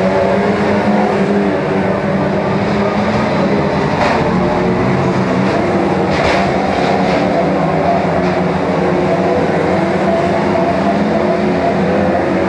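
A pack of saloon stock cars racing, several engines running at once with overlapping pitches that rise and fall slightly. A few short knocks about four and six seconds in, from cars banging into each other.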